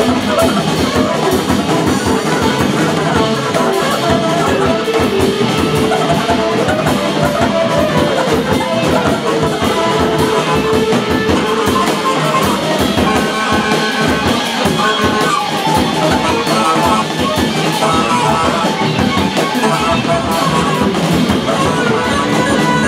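Live rock band playing: electric guitar and drum kit going steadily together.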